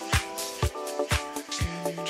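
Background music with a steady beat: a kick drum about twice a second under held chords and cymbal hits.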